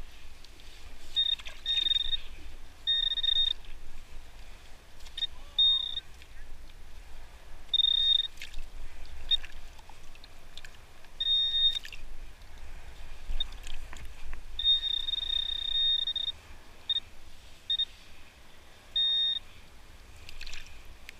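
Handheld metal-detecting pinpointer beeping a high tone at irregular intervals, mostly short beeps with one long steady tone a little over a second long partway through, as it is worked into wet sand over a buried coin. Gloved hands scrape and scoop the sand between beeps.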